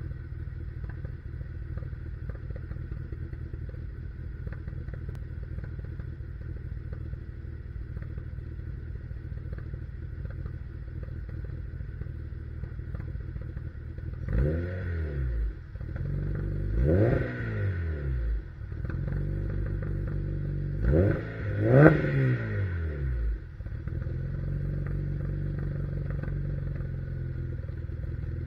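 Supercharged Honda K20 inline-four idling through an HKS Hi Power cat-back exhaust. About halfway through it is revved in several quick blips, each climbing and falling back. The loudest is a double blip about three-quarters through, and then it settles back to a steady idle.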